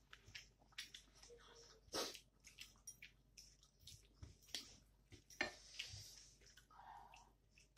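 Faint, close-up wet mouth sounds of a person chewing a mouthful of rice and greens: irregular smacks and clicks, with sharper smacks about two seconds in and again about halfway through.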